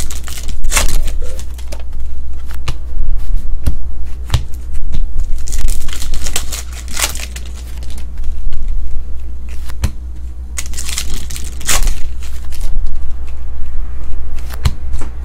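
Foil trading-card pack wrappers crinkling and tearing in irregular bursts, with cards being thumbed through by hand between them, over a steady low hum.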